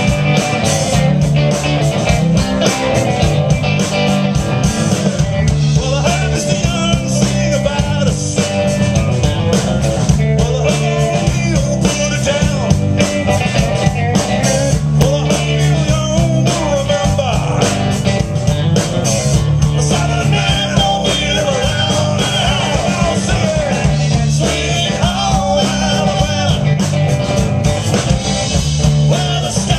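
Rock band playing live and loud: electric guitars, bass guitar and drum kit in a steady, driving groove.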